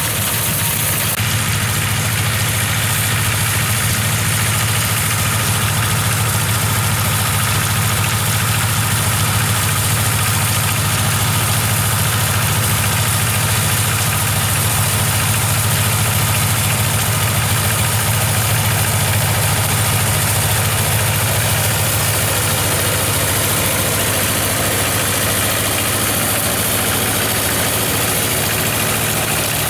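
Tractor engine running steadily as it pulls a LANZ reaper-binder cutting grain. A steady low engine hum sits under an even hiss from the binder's working parts.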